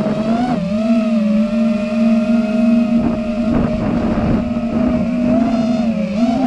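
Six-cell (6S) five-inch FPV quadcopter's motors and propellers whining steadily in flight. The pitch dips and recovers about half a second in, and wavers again near the end as the throttle changes.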